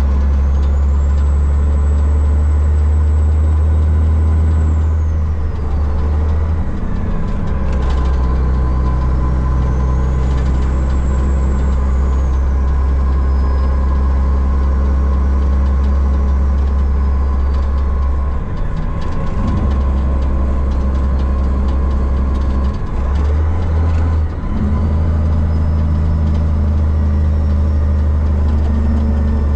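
Heavy dump truck's diesel engine droning steadily inside the cab at road speed. The low engine note briefly dips three times, and a faint high whistle rises and falls now and then.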